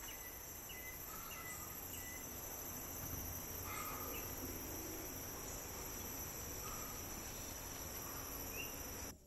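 Rainforest insects droning in several steady high-pitched tones, with short bird chirps every second or two. It all cuts off abruptly near the end.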